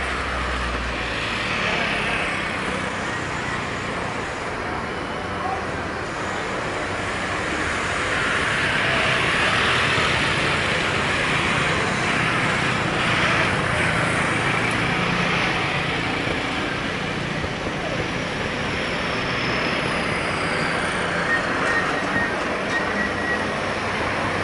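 Airbus A320-214 jet airliner's CFM56 engines at takeoff thrust during the takeoff roll and lift-off, heard from beside the runway as a steady jet rumble. It swells louder about a third of the way in, then eases a little.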